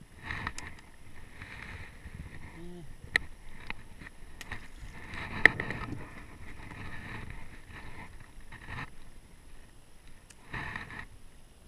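Handling noises in a small fishing boat: rustling and scuffing as gear is moved about, with scattered clicks and two sharp knocks, the louder one about five and a half seconds in.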